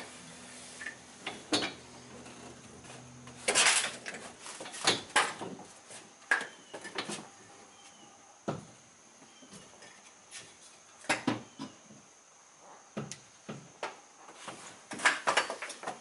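Metal cot frame strung with seatbelt webbing being handled and folded down onto its legs, with irregular clanks, knocks and rattles. The loudest clatter comes about four seconds in and again near the end.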